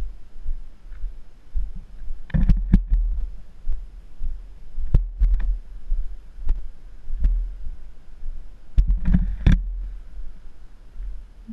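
Footsteps on gravel heard through a helmet-mounted GoPro Hero3 in its housing: irregular low, muffled thuds with the steps, and two clusters of sharper crunches and clicks, about two seconds in and again about nine seconds in.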